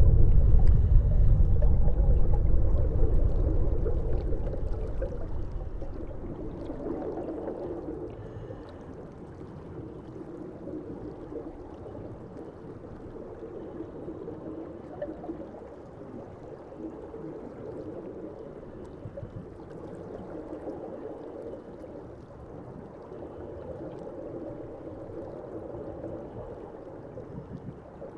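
Ambient sound-design drone: a deep rumble that fades away over the first several seconds, then a steady, muffled low wash with no clear rhythm or tune.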